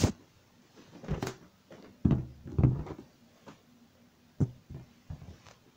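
A rubber balloon being batted upward indoors: a few separate soft, hollow thumps about a second or so apart, mixed with knocks from handling the phone.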